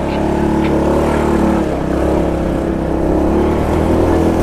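Motorcycle engine running under throttle, its steady note coming in suddenly and holding, with a slight dip in pitch about a second and a half in.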